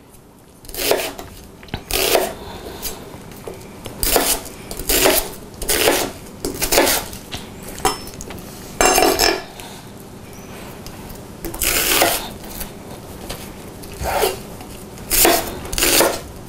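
Chef's knife chopping a sweet yellow onion on a wooden butcher's block: irregular strokes of the blade through the onion onto the board, about one or two a second, with short pauses.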